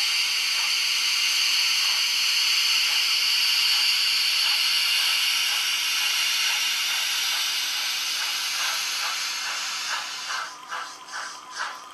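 Live-steam model steam locomotive hissing steadily. Near the end the hiss fades and exhaust beats start, about two a second, as the locomotive pulls away.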